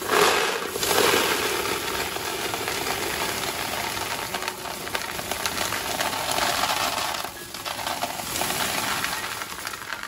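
Dried chickpeas poured into a plastic storage canister: a dense, continuous rattle of hard peas hitting the plastic and each other. It eases briefly a little after seven seconds, picks up again, then stops.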